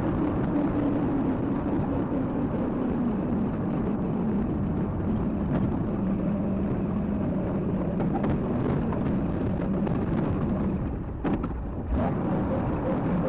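A large vehicle engine running steadily, its drone easing a little lower over the first few seconds, with a brief drop in level shortly before the end.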